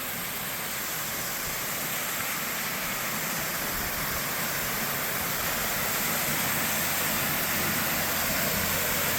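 Waterfall on a gorge stream, its falling water making a steady rushing sound that gets slightly louder.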